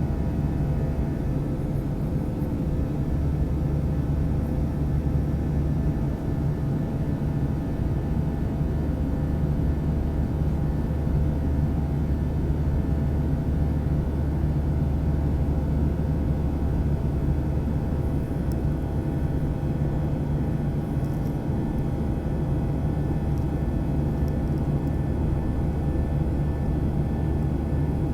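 Steady drone of an airliner's jet engines heard inside the passenger cabin: a deep, even rumble with a few steady hums above it.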